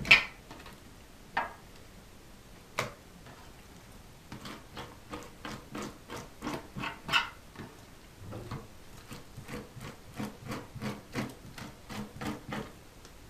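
A metal spoon scraping leftover flesh off a pike skin against a wooden cutting board, in repeated short strokes of about two a second, with a few sharper knocks in the first seconds.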